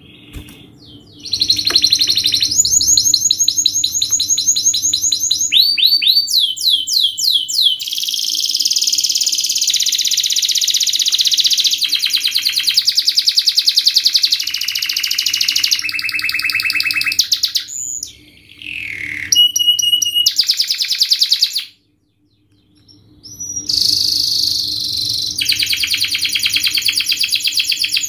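Domestic canary singing a fast, tightly packed song of rapid trills, switching from one trill to another every second or two. The song breaks off for about a second and a half about three-quarters of the way through, then resumes.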